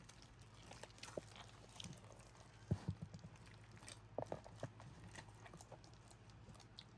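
Soft, freshly mixed slime being squeezed and handled, giving faint, irregular sticky squelches and small popping clicks, with a few louder snaps near the middle.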